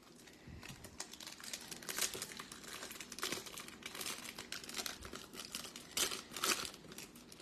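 Foil-and-plastic wrapper of a Topps Stadium Club Chrome trading-card pack crinkling as hands handle it and tear it open, with a run of quick crackles that are loudest about six seconds in.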